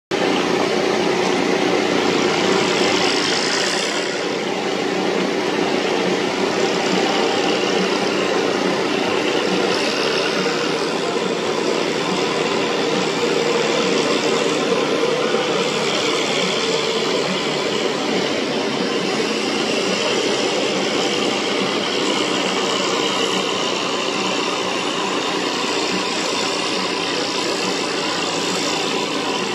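Antique farm tractor engine running steadily under heavy load as it drags a weight-transfer pulling sled down the track.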